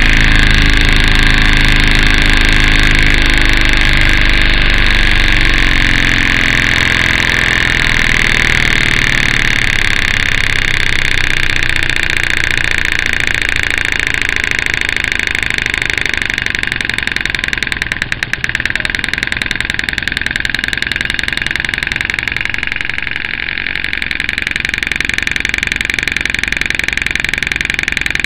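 Stuart Models 10V single-cylinder vertical model steam engine running on compressed air: a steady, fast exhaust beat with a continuous hiss of air. The lower part of the sound thins out a few seconds in, and there is a brief dip in loudness near the middle.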